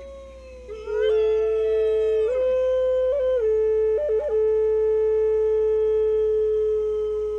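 Native American flute playing a slow melody. It enters about a second in, steps up and back down with quick ornamental flicks around four seconds in, then holds one long note. A wolf howl glides above the flute early on, and another howl rises near the end.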